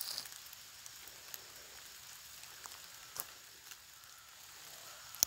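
Faint, steady hiss of light rain, with scattered small ticks and one sharp click near the end.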